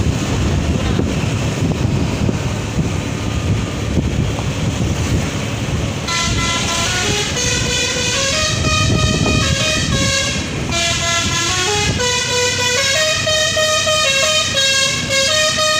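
Telolet musical air horn of an ALS intercity bus playing a tune of stepped notes, starting about six seconds in. Before the tune, wind and road noise rumble on the microphone.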